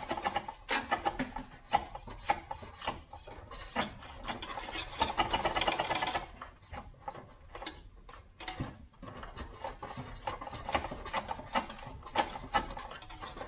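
Irregular scraping and clicking of a stiff wire being worked through a hole in a car's sheet-metal firewall, with a longer rasping stretch about five seconds in.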